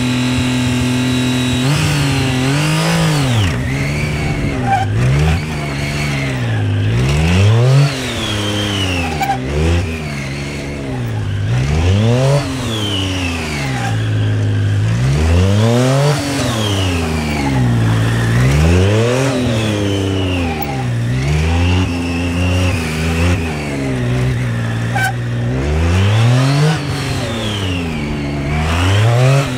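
Triumph Street Triple 675 R's inline three-cylinder engine holding steady for about two seconds, then revving up and dropping back over and over, every second or two, with each short burst of hard acceleration and braking.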